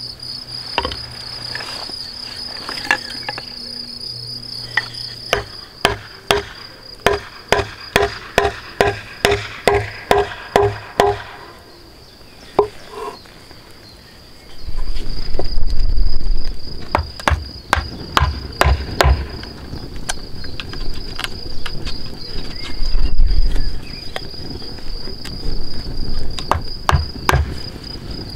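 Crickets chirping steadily throughout. About a third of the way in comes a run of around a dozen evenly spaced wooden knocks, about two a second. From about halfway on, a wooden mallet strikes wood in irregular blows over a low rumble.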